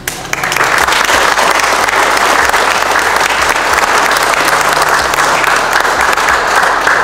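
Audience applauding steadily for about seven seconds as a new memorial plaque is presented, dying away at the very end.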